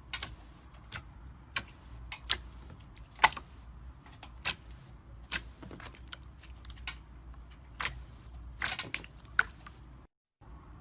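Slime being pressed and squished by hand, giving sharp, irregular clicking pops as air pockets burst, with a quick run of pops near the end.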